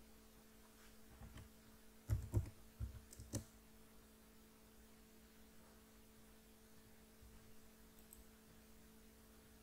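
A cluster of clicks and soft knocks from a computer mouse and keyboard between about one and three and a half seconds in, then a faint single click near the end, over a low steady electrical hum.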